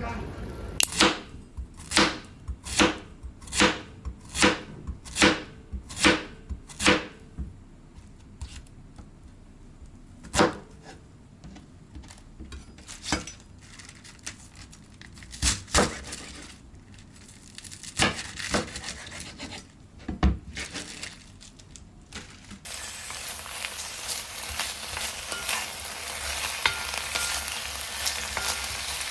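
Knife chopping on a cutting board in about eight even strokes, followed by scattered knocks of kitchen utensils. About 23 seconds in, food starts sizzling in a frying pan.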